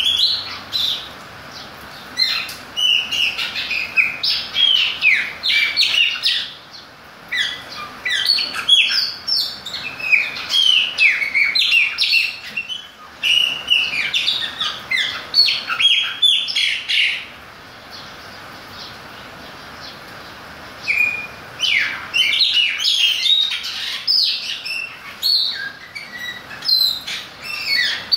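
Caged chopi blackbirds (Gnorimopsar chopi) singing: runs of rapid, sliding whistled and chirping notes. There is a pause of about four seconds a little past the middle, then the song picks up again.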